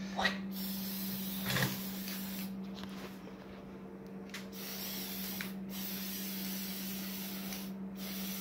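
Aerosol spray-paint can hissing in several bursts with short pauses between them, the first about two seconds long, as paint is sprayed into a clear RC car body. A steady low hum runs underneath.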